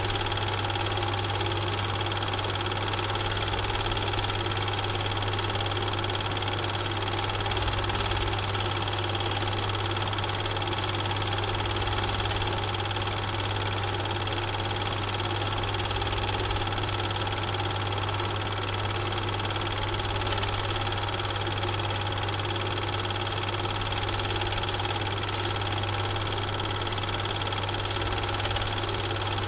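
Super 8 film projector running: a steady motor hum and mechanical whir with hiss, unchanging throughout.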